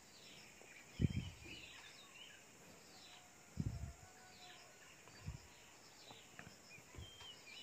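A few soft, low handling thumps, about four in all, while small parts are handled, with faint bird chirps in the background.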